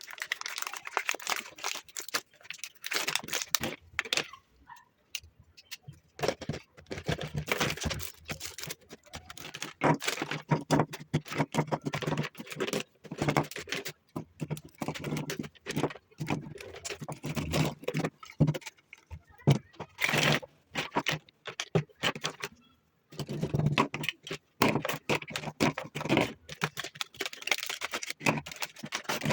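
Small objects being handled and set down on a desk: a dense run of clicks, taps and rustles, broken by several short pauses.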